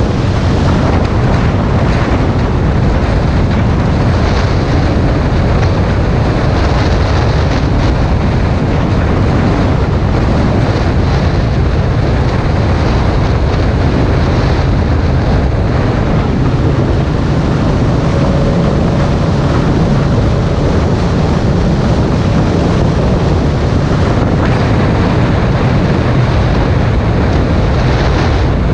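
Ducati XDiavel S's L-twin engine running at a steady cruise, with heavy wind noise on the microphone from riding at speed.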